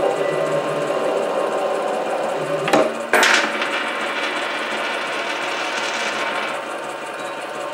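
An SC2 mini lathe running steadily while a parting-off tool is hand-fed into a spinning 316 stainless steel workpiece. About three seconds in there is a sharp click followed by a brief, louder scraping clatter, and then the lathe runs on steadily.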